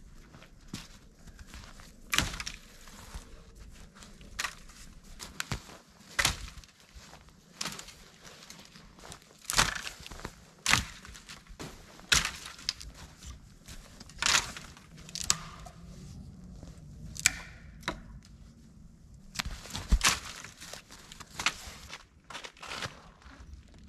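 Dry dead branches knocking and cracking as sticks are dropped onto a pile, with sharp irregular knocks every second or two.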